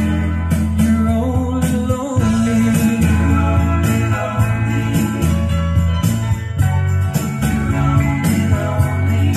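Recorded music with a steady beat and a deep bass line, played back over hi-fi loudspeakers from a McIntosh MCD201 disc player.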